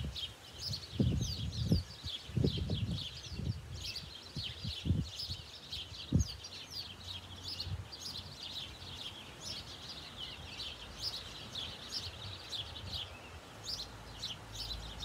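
Birds chirping and twittering without pause. A handful of low, muffled bumps come in the first half, louder than the birdsong, then stop.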